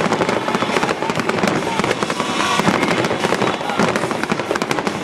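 Aerial fireworks firing in a dense finale barrage: many sharp bursts and crackles overlapping with no break between them.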